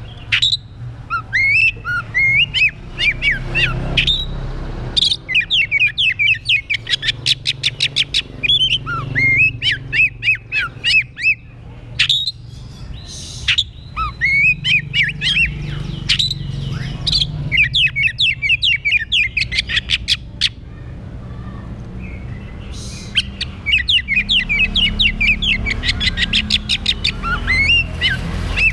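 Oriental magpie-robin (kacer) singing a loud, varied song of quick whistled notes and rapid chattering trills. It comes in bursts separated by short pauses.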